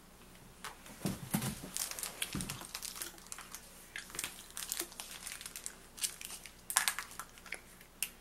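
Crinkling and clicking from objects being handled: an irregular run of small crackles and taps.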